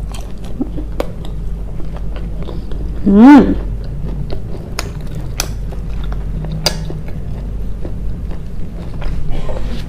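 Close-miked chewing and biting, with wet mouth clicks and smacks scattered through. About three seconds in comes one short hummed sound from the eater that rises and falls in pitch; it is the loudest moment.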